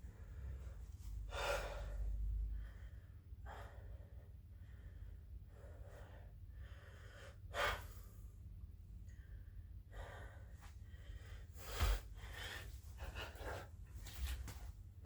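A man breathing hard from the exertion of burpees, with several sharp, noisy exhalations a few seconds apart.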